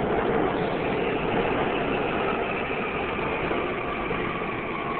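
Seoul Subway Line 2 electric train rolling into the station, its wheels rumbling steadily on the rails and easing slightly as it slows. A thin steady whine comes in about halfway through.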